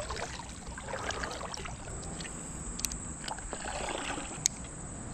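Kayak paddle strokes: the blade dipping and pulling through creek water with soft splashes, plus a couple of sharp light clicks.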